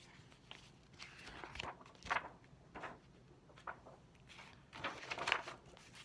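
Pages of a paperback picture book being handled and turned: a string of soft paper rustles and crinkles, the loudest about two seconds in and again near the end.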